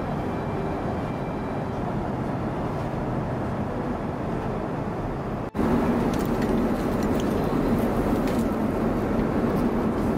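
Steady cabin noise of an Airbus A350-900 in flight: the even rush and low hum of engines and airflow. About five and a half seconds in, the sound breaks off for an instant and comes back louder with a stronger low hum. A few faint clicks follow.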